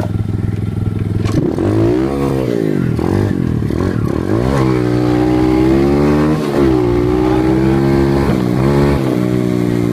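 Dirt bike engine accelerating and easing off over and over while riding a rough trail, its pitch climbing and dropping several times, with some rattling from the bike.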